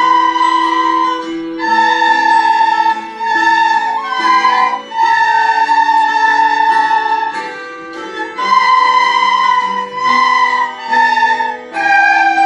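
A class of children playing a melody together on soprano recorders: held notes that change every second or so, with short breaks between phrases. Fainter lower notes sound underneath.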